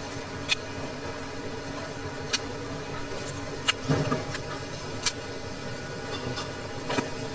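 A kitchen knife tapping sharply on a wooden cutting board while slicing nectarines, about six separate taps a second or so apart, over a steady background hum.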